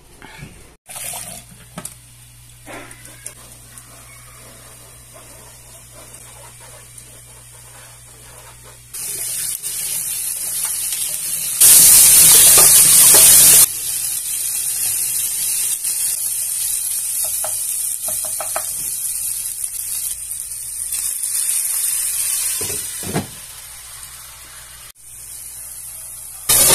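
Chopped meat sizzling in a hot frying pan: a steady high hiss that starts about nine seconds in, after a quiet stretch with a low hum, with a much louder two-second burst of sizzling soon after it starts.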